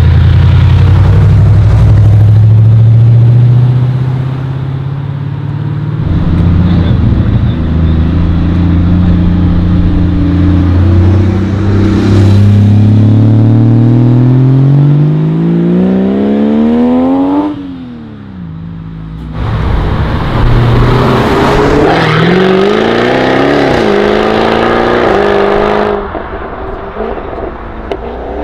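Sports car engines accelerating away one after another, loud and close. One climbs steadily in revs for several seconds before a sharp drop in pitch at a gearshift. Another revs up and down hard.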